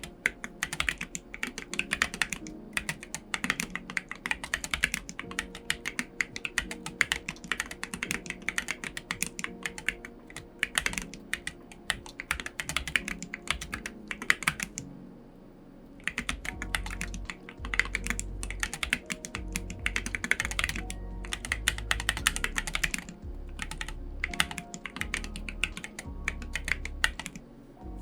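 Typing on an Iris split aluminium mechanical keyboard with ceramic keycaps and Invyr Holy Panda tactile switches: a fast run of sharp key clacks, pausing briefly about halfway through, then resuming with a deeper thud on each keystroke. Faint background music runs underneath.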